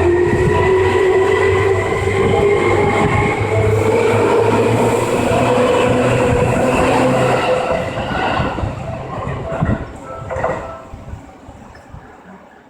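Seibu 2000 series electric train accelerating, its traction motors whining in several tones that rise steadily in pitch over wheel and rail rumble. After about eight seconds the sound fades as the train moves away, with a couple of wheel knocks over rail joints near the end.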